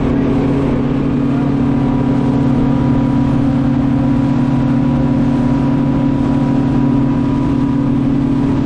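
Motorboat engine running steadily while under way, a constant low hum with no change in speed.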